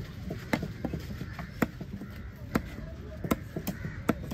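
Large knife chopping yellow dotted trevally on a wooden log chopping block: sharp, irregular knocks, about seven in four seconds.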